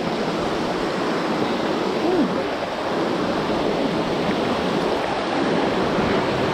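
Steady rush of water from a waterfall pouring into a pool, with a brief voice heard about two seconds in.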